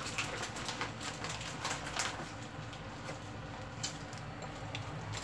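Dried fish (buwad) frying in shallow oil in a frying pan: a light sizzle with many small crackles and pops, thickest in the first two seconds, then thinning out.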